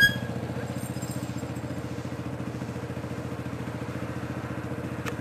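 A small engine running steadily at an even, fast-pulsing speed, like a vehicle towing a snow disk. Right at the start a brief high-pitched squeak stands out above it.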